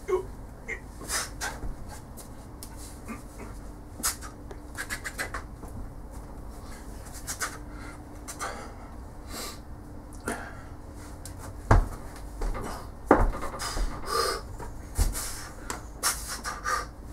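A man breathing hard in short, irregular breaths under the strain of holding a 54 kg inch dumbbell hugged to his chest in a deep squat, with some rubbing and a few thumps in the second half.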